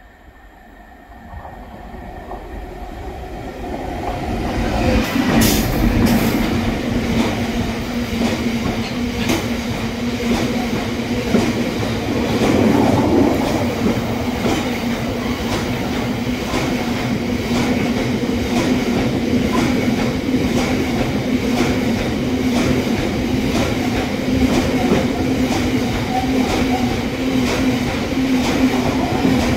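Class 60 diesel locomotive hauling a loaded biomass train to Drax, approaching and passing close by within the first few seconds, then a long rake of hopper wagons rolling steadily past with a constant rumble, a low hum and a regular clatter of wheels over rail joints.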